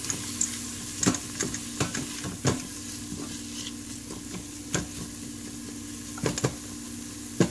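Chopped onions sizzling in hot oil in a stainless steel Instant Pot insert on sauté mode, while a silicone spatula stirs them and scrapes and taps against the steel pot now and then. A steady low hum runs underneath.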